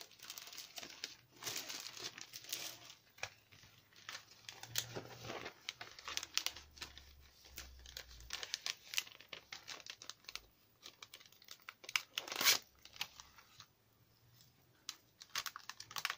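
Clear plastic sleeve crinkling and rustling in irregular crackles as a paper card is slid into it and handled, with one louder crackle about twelve seconds in.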